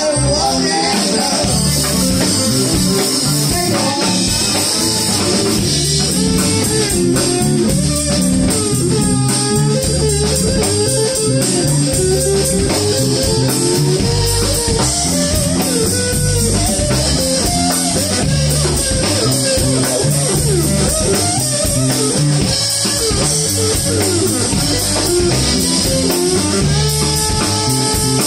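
Live blues-rock band playing an instrumental break: an electric guitar lead over bass guitar and drum kit, with no singing.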